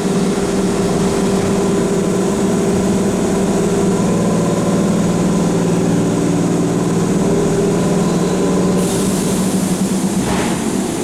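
Keihan electric train standing at the platform, its on-board equipment giving a loud, steady hum with low held tones. A high hiss starts near the end.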